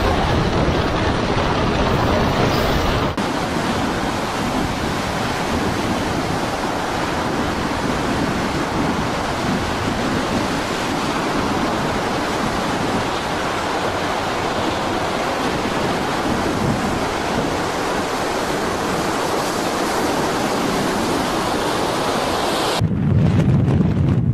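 Stormy sea: a steady rush of wind and breaking waves. Its character shifts abruptly about three seconds in, and near the end heavy, low wind buffeting on the microphone takes over.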